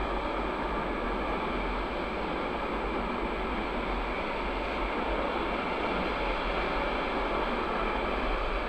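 Freight train wagons rolling steadily past on the adjacent track, a continuous even wheel-on-rail noise.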